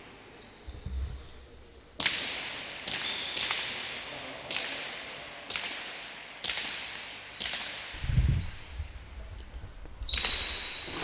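Leather pelota struck by bare hands and cracking off the walls of an empty frontón: a sharp, echoing crack about once a second, with a few short squeaks.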